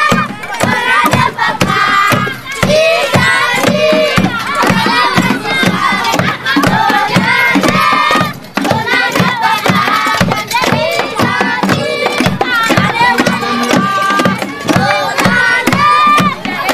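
A group of children singing and chanting together over a steady beat.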